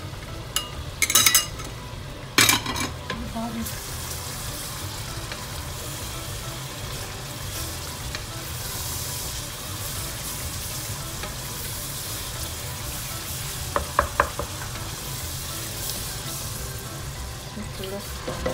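Onion masala frying and sizzling steadily in a steel pot while a wooden spatula stirs and scrapes through it. A few sharp clacks of the spatula against the pot come in the first couple of seconds and again about 14 seconds in.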